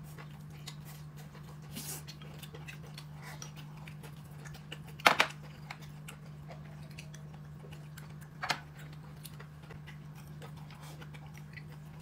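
Quiet chewing and eating with faint scattered clicks, and two sharper clicks, the louder about five seconds in and another about three seconds later, over a steady low hum.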